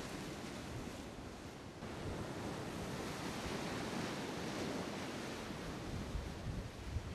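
Ocean surf breaking and washing against a rocky basalt shoreline: a steady rush of waves, slightly fuller after the first couple of seconds.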